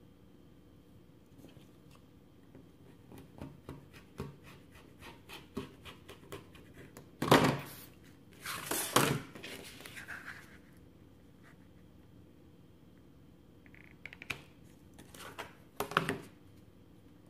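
Rotary cutter cutting through sticky board along a plastic quilting ruler, a run of quick small ticks, followed by louder knocks and scraping as the ruler is shifted on the cutting mat.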